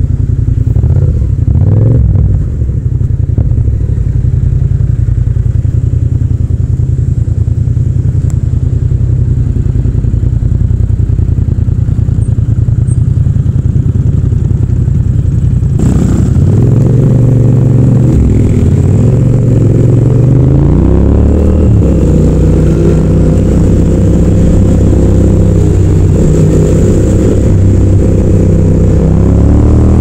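Yamaha MT-07's 689 cc parallel-twin engine, heard raw without wind noise, idling in stopped traffic. About sixteen seconds in it pulls away and accelerates, the revs climbing and falling back several times as it goes up through the gears.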